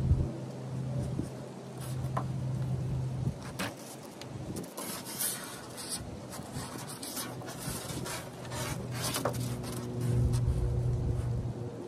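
Short scratchy rubbing and scraping on a sheet of foam board insulation as a tape measure blade is drawn across it and the board is marked. A low vehicle hum sits under it at the start and swells again near the end.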